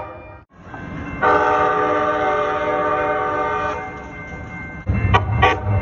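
Calgary CTrain light rail vehicle horn sounding one steady blast of about two and a half seconds. Near the end come a couple of sharp ringing strikes, typical of the train's bell, over the low rumble of the train.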